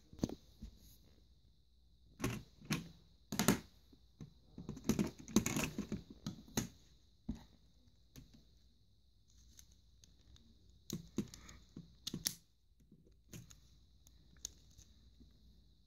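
Plastic LEGO bricks and Technic parts of a LEGO pistol clicking and clattering as it is handled and its mechanism is worked by hand: irregular sharp clicks coming in small clusters.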